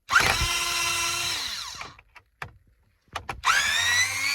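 Cordless drill-driver with a Torx T20 bit backing out the radio's mounting screws. The motor whines up, runs steadily for about a second and a half and winds down, then after a few clicks it spins up again about three seconds in.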